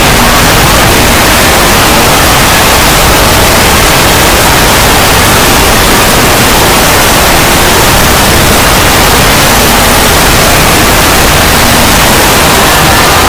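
Dense, heavily distorted, clipped noise held steadily at full volume, a wall of static with no breaks: an overdriven 'dank' meme sound effect.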